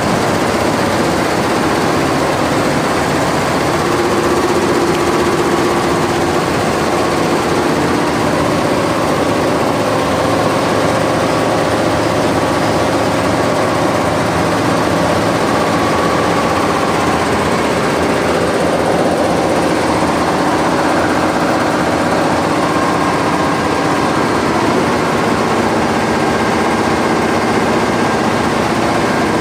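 Multi-head industrial embroidery machine stitching at high speed: a loud, steady, rapid mechanical clatter from its needle heads, with faint steady tones running through it.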